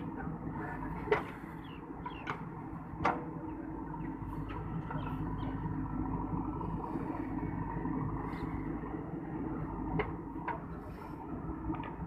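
JCB 3DX backhoe loader's diesel engine running steadily as the backhoe arm digs, with a few sharp knocks from the arm and bucket, the loudest about a second in and about three seconds in.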